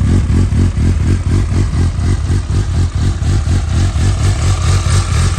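2012 Suzuki GSR750's inline-four engine idling through its Yoshimura carbon exhaust, a steady even throb with no revving.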